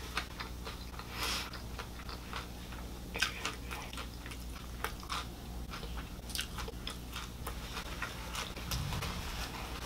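A person chewing a mouthful of hard-shell taco with her mouth closed: quiet, irregular crunches and wet mouth sounds.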